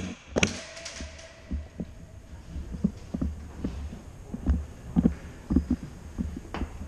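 Slow footsteps and handling knocks carried up through an airsoft rifle to its mounted camera: dull low thumps about once or twice a second, with two sharp clicks in the first half second.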